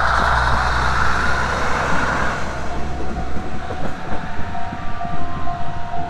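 KiHa 110 diesel railcar passing close by: a loud rumble of engine and wheels on the rails, with irregular knocks as the wheels cross rail joints. A steady high tone joins about two and a half seconds in.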